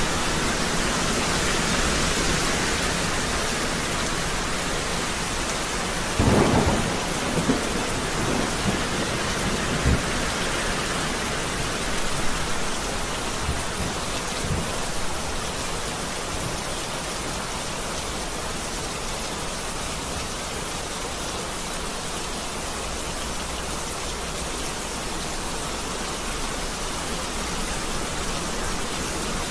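Steady rain falling, with a roll of thunder about six seconds in that breaks into a few smaller rumbles and fades over the next several seconds.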